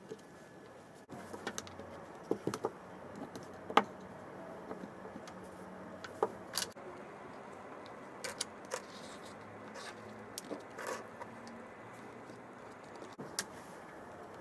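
Scattered light clicks and clinks of small hard parts being handled and fitted, at irregular intervals, with one sharper knock about four seconds in.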